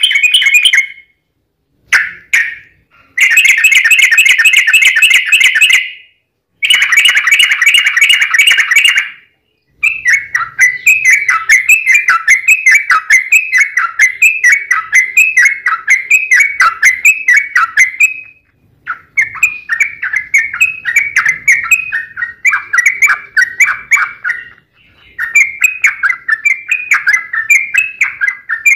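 Yellow-vented bulbul (trucukan) singing loudly. It gives several long, rapid trills in the first nine seconds, then long runs of quick repeated falling notes, about two or three a second, with brief pauses between runs.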